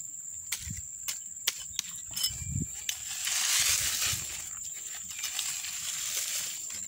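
Loose soil being dug and thrown: scattered sharp clicks of grit and small stones and a couple of dull thuds, then a loud scraping rush of dirt about three seconds in.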